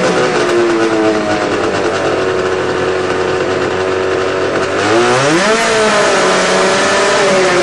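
Loud two-stroke snowmobile engine, running through an open-can silencer, with the sled raised and the track free. Its revs hang and slowly sag, then climb sharply about five seconds in as the throttle opens, and ease back. That throttle is what makes the torque-converter clutch pulleys shift ratio.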